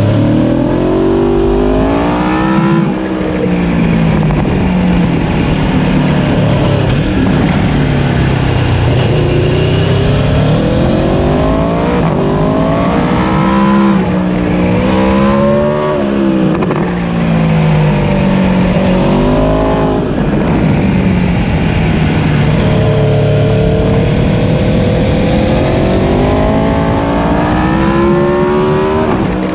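Aprilia Tuono motorcycle engine revving hard while riding, its pitch climbing under acceleration and dropping back again and again through the bends.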